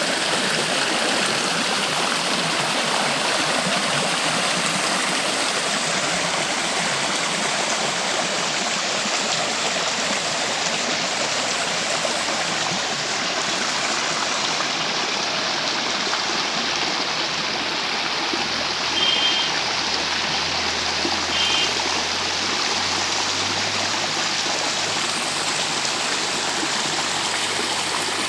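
Running water from a stream rushing steadily. Two short, high chirps break through about two-thirds of the way in.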